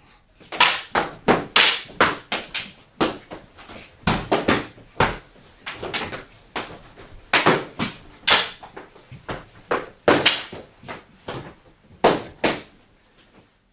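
Eskrima sticks clacking against each other and striking helmets and padded jackets in irregular flurries of sharp hits, with short pauses between the exchanges.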